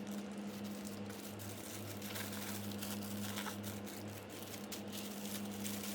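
A steady low hum, pulsing slightly, with scattered faint small clicks and rustles.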